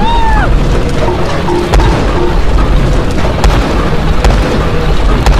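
An 8-ton road roller running over a row of tubes: a heavy, continuous low rumble with repeated sharp cracks and pops throughout.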